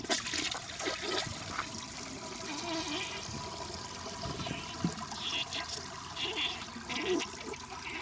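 A 1971 Kilgore Apex toilet flushing: a continuous rush of water with uneven surges.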